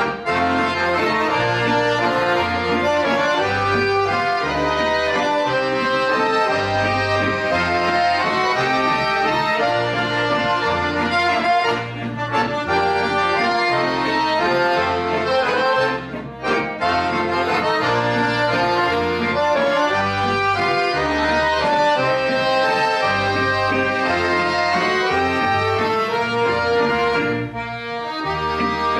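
An ensemble of piano accordions and chromatic button accordions playing a tune together over a steady, rhythmic bass line, with brief breaks between phrases about 12, 16 and 27 seconds in.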